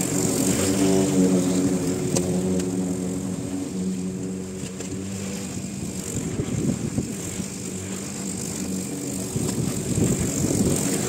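Walk-behind petrol rotary lawn mower running steadily while being pushed over grass. Its engine note is clearest in the first half and rougher and noisier in the second.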